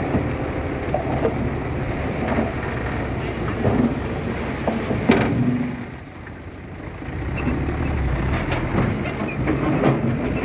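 Diesel engine of heavy earthmoving machinery running under work, with several sharp metallic knocks. It eases off about six seconds in and then builds up again.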